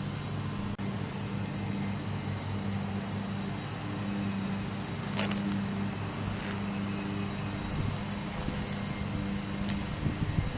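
Steady low hum of a running engine or motor, with a few faint clicks.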